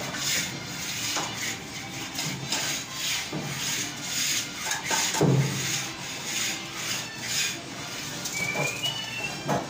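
Dry rubbing of a hand sweeping over a plastered wall, in short repeated strokes, with footsteps and knocks on a wooden plank scaffold; the loudest knock comes about halfway through. A brief high chirp near the end.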